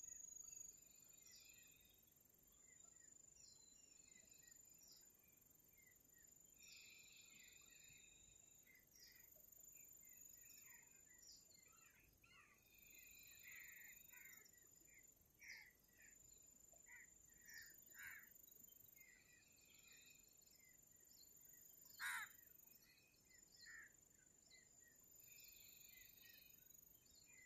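Faint birdsong, many short chirps and calls, over a steady high insect trill such as crickets; one louder, sharp call stands out late on.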